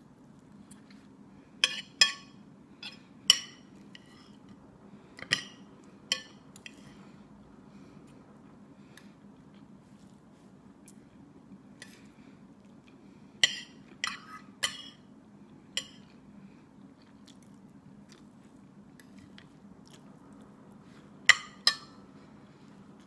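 Metal fork and knife clinking against a plate while an omelet is cut and eaten: about a dozen sharp, short-ringing clinks in small clusters, with quiet chewing between them. A steady low hum runs underneath.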